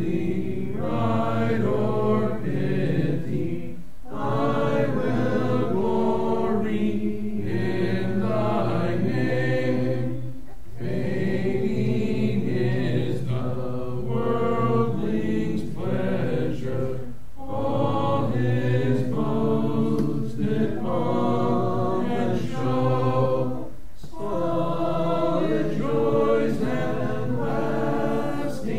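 Congregation singing a hymn a cappella, many unaccompanied voices in harmony, in long sung lines with a brief pause for breath between lines every six or seven seconds.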